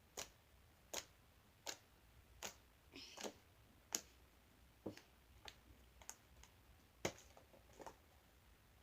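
Homemade slime being squeezed and pressed, giving a series of sharp air-pocket clicks, about one every three-quarters of a second, with a quick cluster about three seconds in, stopping shortly before the end.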